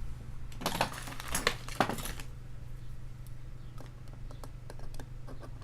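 Small metal clicks and scraping of tools working on a padlock as it is dismantled: a flurry of clicks and scrapes about a second in, then scattered light ticks.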